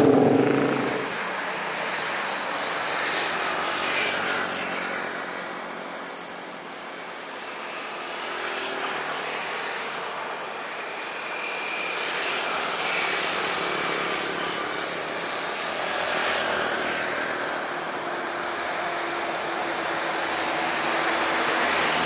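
Rolls-Royce Trent jet engines of an Airbus A330-300 at takeoff power: a steady rushing jet roar heard from a distance, dipping a little and then swelling again as the aircraft rolls and lifts off.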